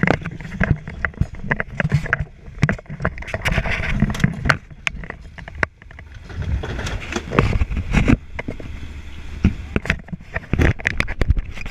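Irregular knocks, clatter and scrapes of burnt debris being handled at close range, over a low steady rumble.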